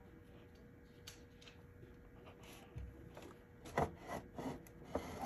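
Quiet room with a faint steady hum, then from about three and a half seconds in a run of rubbing sounds and light knocks, loudest near the end.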